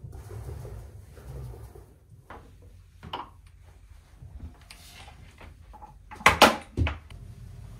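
Wooden clunks and knocks as a round wooden low table and its loose wooden top are handled and set down on a rug. A few light knocks come about two and three seconds in, then two or three hard knocks a little after six seconds, the loudest of the lot.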